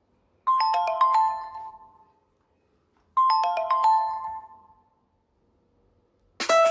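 Nokia Lumia 520 ringtone: a short phrase of quick, bright chime-like notes, played twice about 2.7 s apart, each ringing out before it stops. A different, busier ringtone begins just before the end.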